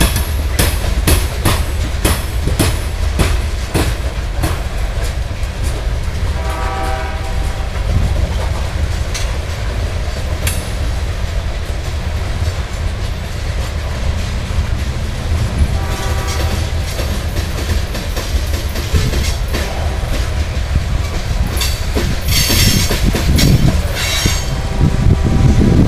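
Loaded covered hopper cars of a grain train rolling past: a steady heavy low rumble with repeated clicks of wheels passing over rail joints, thickest near the start and near the end. Brief pitched tones sound twice, about seven and sixteen seconds in.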